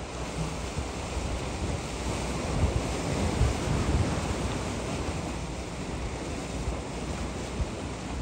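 Sea surf washing against a concrete tetrapod breakwater, with wind rumbling on the microphone.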